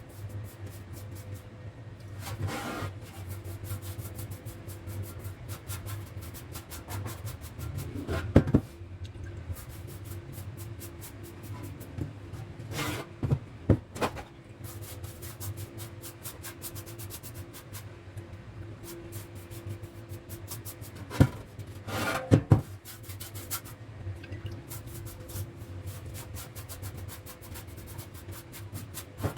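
Rapid, repeated rubbing or scraping strokes by hand on a part being restored, over a steady low hum, with a few louder knocks at intervals.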